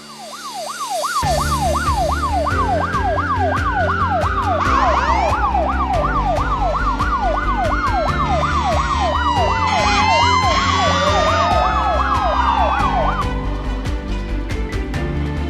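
Fire engine sirens: a fast yelp sweeping up and down about three times a second, with slower wails rising and falling over it, stopping about two seconds before the end. Background music with a steady beat and bass plays underneath.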